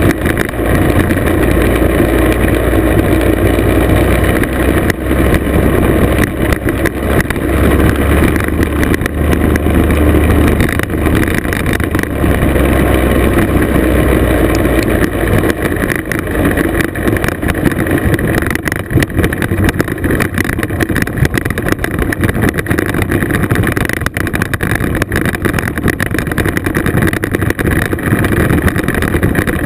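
Classic two-stroke scooter engine running steadily under way on a gravel road, mixed with wind and tyre noise.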